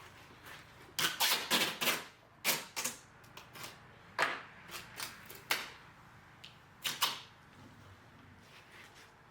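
A run of short, sharp clicks and rasps at irregular intervals, thickest in a quick cluster about a second in, then scattered singly.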